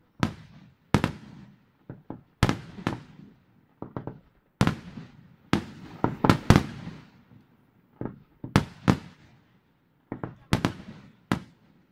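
Aerial firework shells bursting: over a dozen loud bangs at uneven spacing, sometimes two or three in quick succession, each trailing off in an echo.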